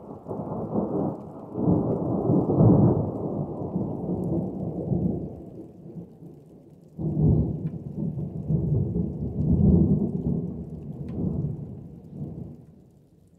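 Thunder: a deep rumble that swells and rolls for about six seconds, then a second roll breaks in suddenly about seven seconds in and dies away near the end.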